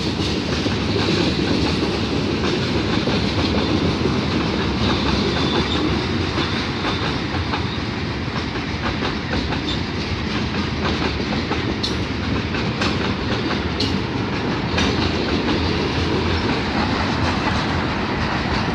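A long CN freight train's cars, covered hoppers and then boxcars, rolling past with a steady rumble of steel wheels on the rails. A few sharp clicks come through in the second half.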